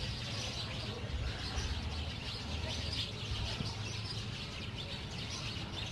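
Many fish thrashing and splashing in the shallow water of a seine net drawn tight, a dense, continuous crackling spatter of water.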